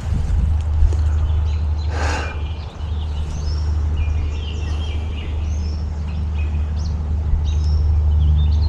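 Small songbirds chirping and calling repeatedly over a steady low rumble, with a brief rustle about two seconds in.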